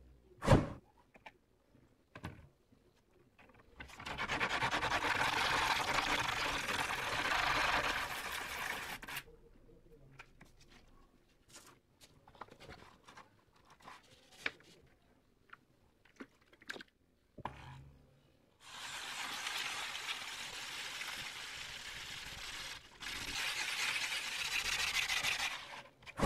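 A stone rubbed back and forth by hand on wet black wet-and-dry sandpaper: a gritty scraping in two long spells, the first about five seconds, the second about seven, with small clicks between. A sharp knock comes about half a second in and is the loudest sound.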